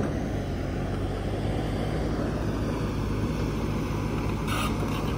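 SANY hydraulic excavator's diesel engine and hydraulic pump running steadily under load as the boom and bucket move. A short hiss comes near the end.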